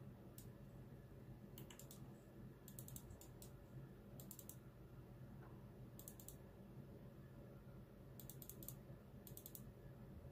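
Faint, sharp clicks in quick clusters of two to four, spaced a second or two apart, over a quiet room hum.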